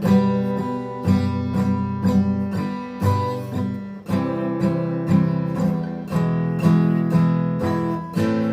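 Acoustic guitar music: chords strummed at a steady rhythm.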